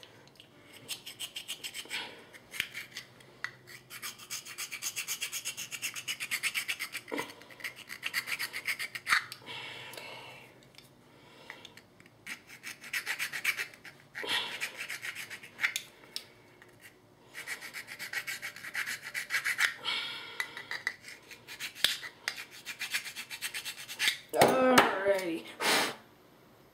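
Fine file blade of a Leatherman multitool rasping on a small plastic part in repeated bursts of quick back-and-forth strokes, with short pauses between bursts. The part is being filed down because it still sits a little high.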